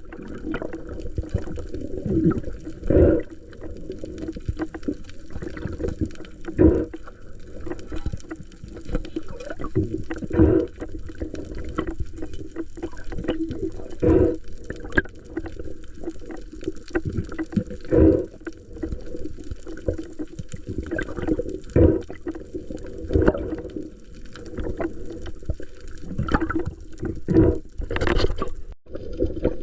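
Muffled water sloshing and gurgling, with a surge about every three to four seconds.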